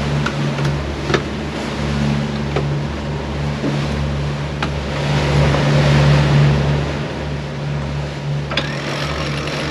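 Sailing catamaran's diesel engine running steadily under way, a low drone under wind and water noise. A few sharp clicks come from the winch and rope clutches being worked as the genoa is let out.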